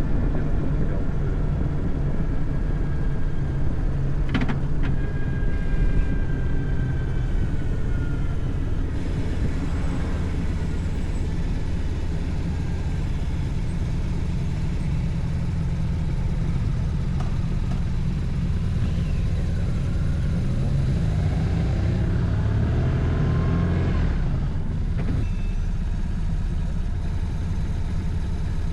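BMW R1150RT motorcycle riding at a steady pace, its engine and road noise running continuously as picked up through the rider's helmet intercom microphone.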